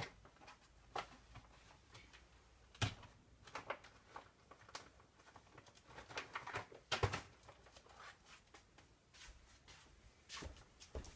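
Faint handling and rummaging noises as craft supplies are searched through: scattered irregular clicks and knocks, the sharpest about three and seven seconds in.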